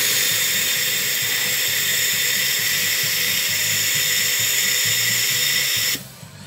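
Compressed-air sandblasting gun with a closed, recirculating nozzle that drops the spent sand into a bag, blasting rust off a car door panel: a loud steady hiss that cuts off abruptly about six seconds in.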